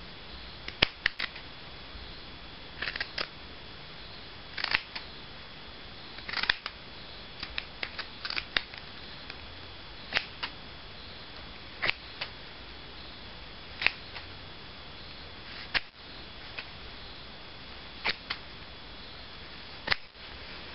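Scissors snipping through a black knit sock, short sharp snips every second or two, some in quick pairs or small clusters, over a steady hiss.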